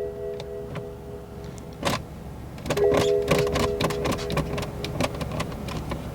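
Steady warning chime from the BMW 650i's dashboard, several notes held together. It stops about two seconds in and comes back about a second later, alongside a quick run of sharp clicks.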